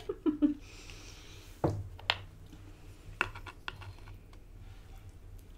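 Metal fork and knife clicking and scraping on a wooden cutting board while cutting and scooping scrambled eggs: a few separate light taps spread through.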